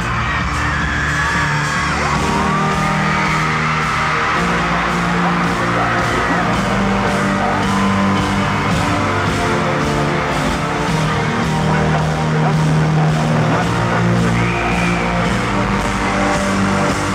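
Live concert music from a rock band, with held low chords changing every second or two, over a crowd yelling and whooping throughout.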